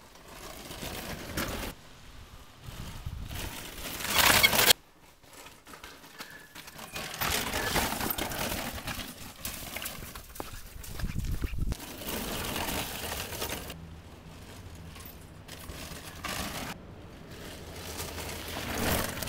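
Tyres of a four-wheeled downhill mountain bike rolling and crunching over dirt and gravel trail. The noise rises and falls, changing abruptly several times.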